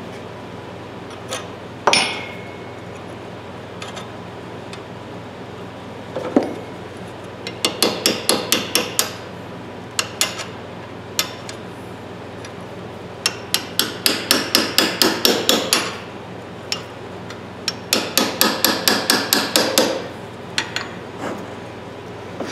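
Hammer tapping a steel tool set against a rusted, seized ratchet head clamped in a vise, trying to break the rust loose. One sharp strike that rings about two seconds in, then three runs of quick light taps, about six a second.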